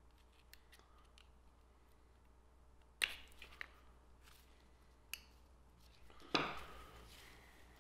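Small sharp metallic clicks as a retaining ring is pressed into a manual-transmission synchronizer hub and shift-collar assembly: one crisp snap about three seconds in, two lighter clicks after it, then a brief metal clatter around six seconds in.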